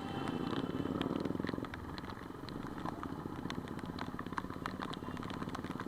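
Motorcycle engine running with a fast, even beat, with scattered sharp clicks and ticks over it.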